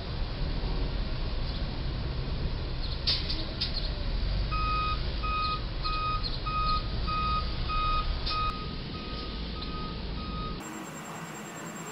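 Backup alarm of a Ryder box truck beeping about twice a second, the truck put in reverse to back out from under the low bridge, starting about four and a half seconds in over a steady low rumble of engines and traffic. A couple of sharp knocks come about three seconds in.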